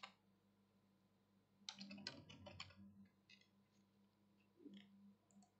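Faint computer keyboard typing: a quick run of keystrokes about two seconds in, then a few scattered single key presses.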